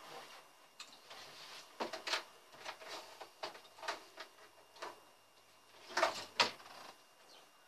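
Rummaging in the open top drawer of a wooden nightstand: a run of small clicks and knocks as things inside are moved about, with two louder knocks about six seconds in.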